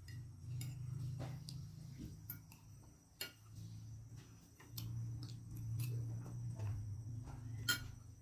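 Close-miked eating of fried rice: chewing with scattered sharp mouth and utensil clicks, the sharpest one near the end.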